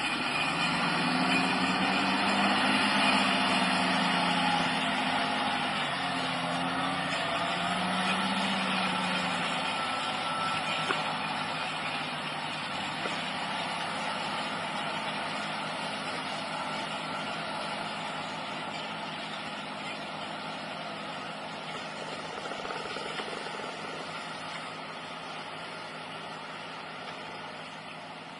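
Heavy vehicle engine running, its pitch wavering during the first several seconds, then growing gradually quieter.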